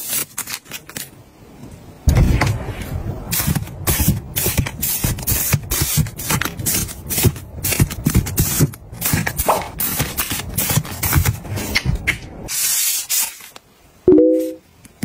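Plastic-wrapped facial tissue packs being handled and stacked: irregular crinkling and rustling of the plastic film with soft knocks as packs are set down, a longer rustle a couple of seconds before the end and a brief squeak near the end.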